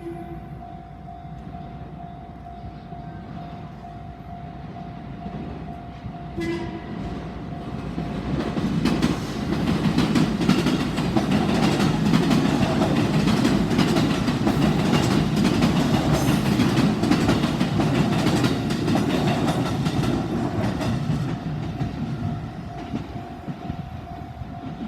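A JR Tokaido Main Line train sounds its horn briefly about six seconds in, then passes over the level crossing, a loud rumble with a rapid clatter of wheels over the rail joints that builds, holds for about ten seconds and fades. Under it the crossing's warning bell keeps ringing steadily.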